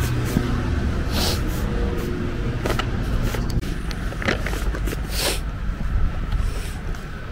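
A car going by on a town street, its low engine rumble fading out about three and a half seconds in, with scattered sharp clicks over it.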